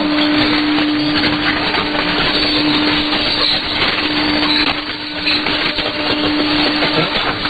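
Shortwave AM reception of a weak broadcast on 6100 kHz through a software-defined radio: dense static and hiss, with a steady low tone that fades in and out. No clear programme audio comes through.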